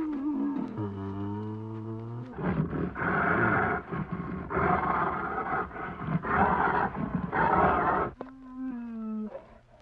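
A bear roaring. A drawn-out pitched moan falls in pitch, then several loud, rough roars follow in swells, and a shorter falling moan comes near the end.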